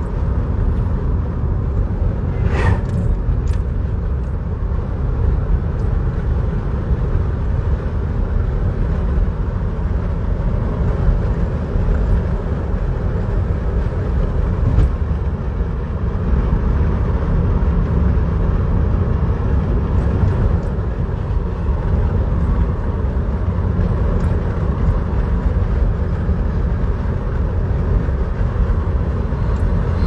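Steady low rumble of road and engine noise heard from inside a moving car's cabin at cruising speed. A brief, sharper sound stands out about two and a half seconds in.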